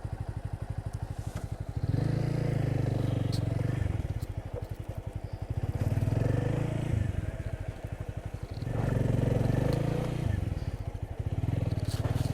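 Motorcycle engine running with a steady pulsing beat, getting louder several times as the throttle is opened and eased off.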